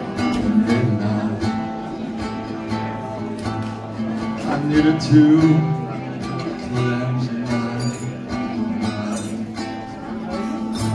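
A man singing to a strummed acoustic guitar, amplified through PA speakers.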